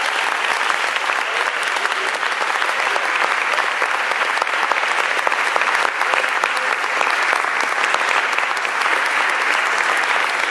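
Audience applauding steadily, a dense patter of many hands clapping that neither builds nor fades.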